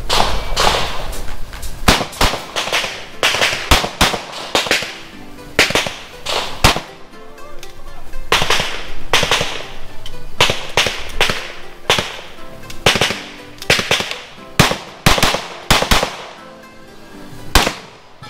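Pistol fired in rapid strings, roughly two shots a second, each sharp crack followed by a short echo, with brief pauses between strings about seven seconds in and near the end.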